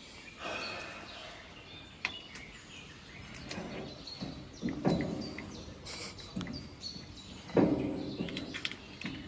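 A jammed OnGuard bike lock being worked at: scattered sharp metallic clicks and rattles. Birds chirp in the background, and there are a few louder short sounds near the middle and about eight seconds in.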